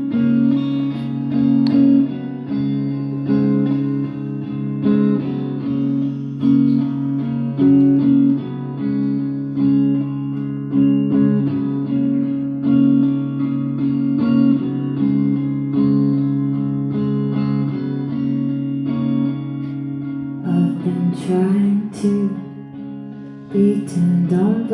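Live solo guitar playing a plucked, repeating chordal figure as a song's introduction. A singing voice enters near the end.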